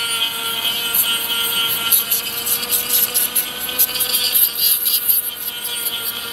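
Werkman hoof grinder, a tungsten carbide chip cutting disc on a Bosch cordless mini grinder, running with a steady whine while it grinds away a horse's hoof sole, with irregular rasping strokes as the disc bites the horn.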